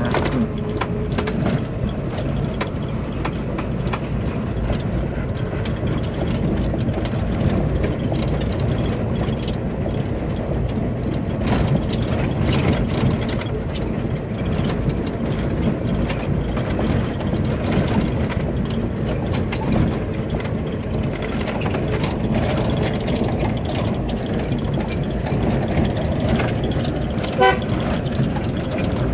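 Suzuki Katana 4x4 driving at a steady pace, its engine and road noise heard from inside the cabin. A brief horn toot sounds near the end.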